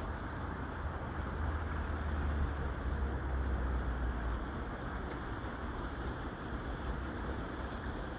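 Ship's engine running: a steady low rumble under a wash of noise, heavier for a few seconds about a second in.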